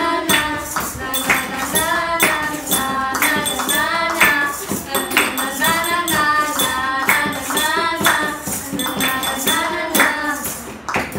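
Young voices singing a song together to a steady shaking, jingling percussion beat from improvised classroom instruments.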